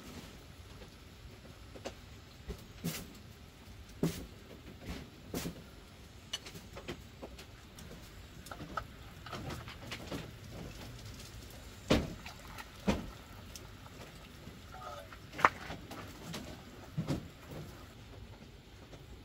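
Irregular knocks and clicks from handling objects, the sharpest about twelve and fifteen seconds in, with a few chicken clucks in the background.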